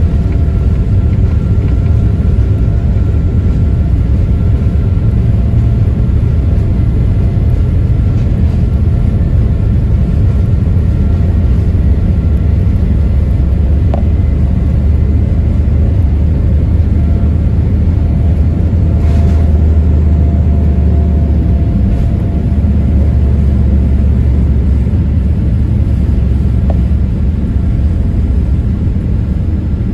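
Passenger jet heard from inside the cabin during takeoff: a loud, steady low rumble of engines and airframe with faint steady tones above it, swelling a little about halfway through.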